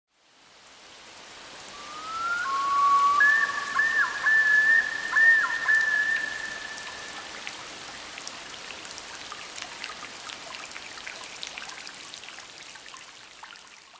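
Bird-of-prey call sound effect: two overlapping whistled tones that rise at first, then hold for about four seconds with several quick dips in pitch, over a steady hiss. After the whistles fade, scattered crackles and ticks continue in the hiss.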